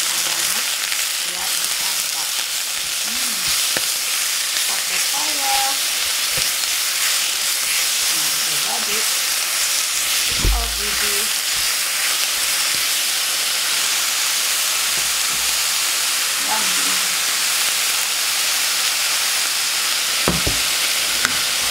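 Cabbage leaves sizzling in hot oil in a frying pan while they are tossed with tongs, a steady hiss throughout. A few knocks come through, the loudest about halfway.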